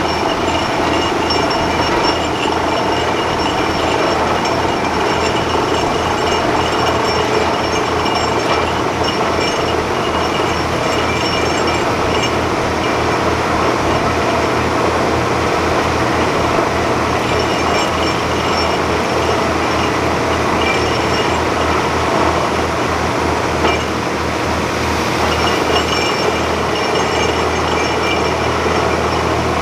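Truck-mounted borewell drilling rig drilling: a loud, steady machine drone with a fast, even low pulsing. The pulsing fades out about 25 seconds in, leaving a steadier hum.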